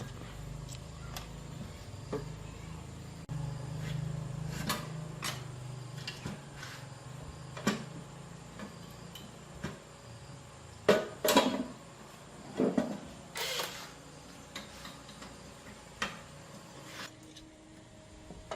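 Workshop handling noises: scattered clicks and knocks of hard parts being picked up and set down over a low hum that stops about eight seconds in. A cluster of louder knocks and a short scrape comes about eleven to fourteen seconds in.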